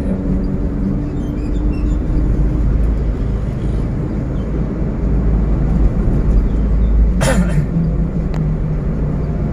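Steady low rumble of a car's engine and tyres heard inside the cabin in slow traffic, with a faint engine hum. A brief sharp noise cuts in about seven seconds in.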